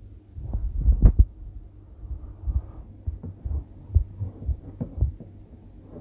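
Irregular low thumps and knocks of handling noise picked up by the microphone, with a sharper, louder click about a second in, over a steady low electrical hum.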